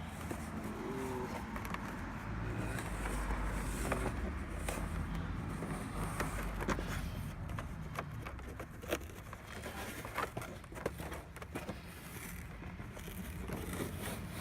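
Scraping, crackling and scattered sharp clicks as the old sagging headliner from a VW Jetta is handled and its fabric worked loose from the crumbling foam and old glue, over a low steady rumble.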